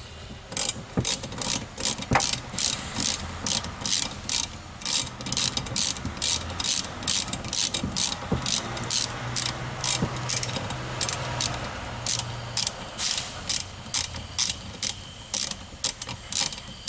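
Socket ratchet clicking steadily, about two to three clicks a second, as it backs out the fasteners holding the cold start valve on the engine's intake.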